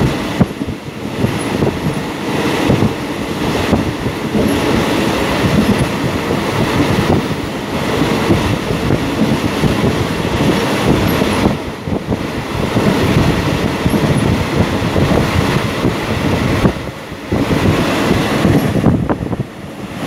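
Ordinary passenger train 258 running along the track: a loud, steady rumble of wheels on rails, easing briefly twice.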